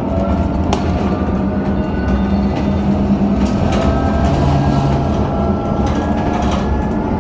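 Inside a city transit bus under way: a steady drone from the drivetrain, with road noise and a few short rattles or knocks from the body.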